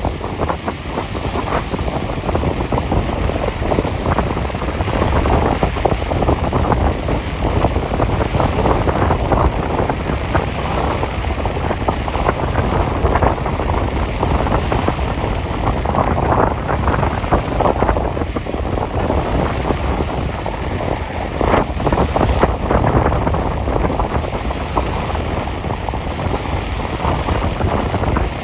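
Strong wind buffeting the microphone in gusts, with a steady rumble, over the wash of waves on a lake.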